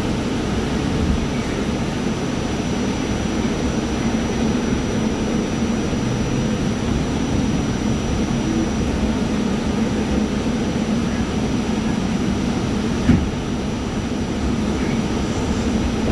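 R44 subway car on the Staten Island Railway giving a steady rumble and hum, with a faint high whine over it. One short knock about thirteen seconds in.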